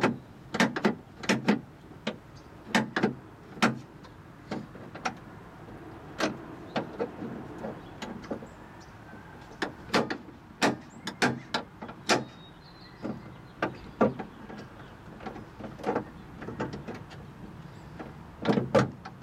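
Irregular sharp clicks and knocks from a car door lock cylinder and its retaining clip being worked into place by hand, some coming in quick clusters.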